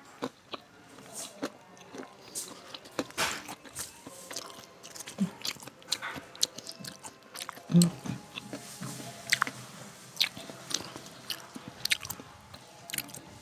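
Close-miked eating sounds: chewing and crunching a mouthful of rice, curry and crackers, with irregular sharp crunches and wet mouth clicks. A louder thump comes about eight seconds in.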